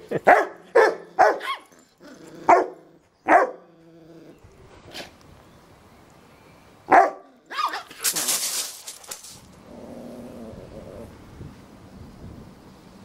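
Dogs barking in play: a quick run of about four sharp barks, single barks a couple of seconds and three seconds in and again about seven seconds in, then a harsh noisy burst around eight seconds, after which it goes quieter.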